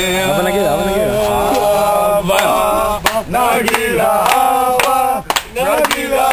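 Men chanting and singing together in a sustained, rhythmic chant, with hand claps now and then.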